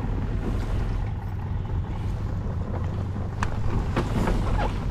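Boat motor running steadily at low speed, with wind on the microphone. Two short sharp clicks come near the end.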